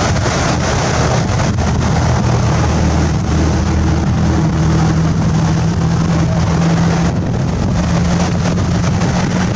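Strong wind buffeting the microphone over the continuous noise of rough sea surf, with a steady low hum underneath.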